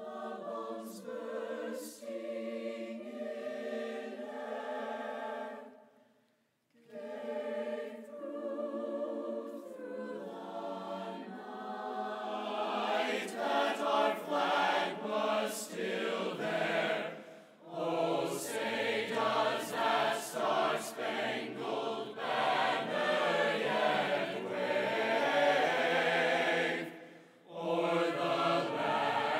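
Mixed choir of men's and women's voices singing in phrases, with a brief break about six seconds in; the singing grows louder and fuller from about halfway through.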